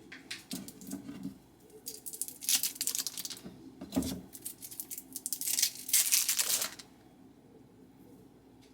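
Rustling and crinkling in two main bursts, with a single dull thump about four seconds in.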